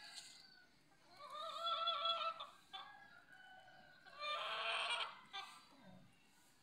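Domestic chickens calling: two drawn-out, wavering calls, the first about a second in and a louder, rougher one a little after the four-second mark.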